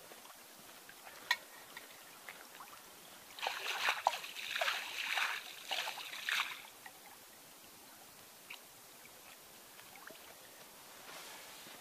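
Hand splashing and sloshing in shallow lake water at the shore, a quick run of splashes lasting about three seconds near the middle.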